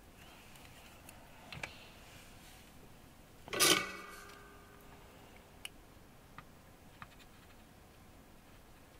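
Small metal hand tools working on a guitar effects pedal: a few faint ticks, and one louder metallic clink with a short ring about three and a half seconds in.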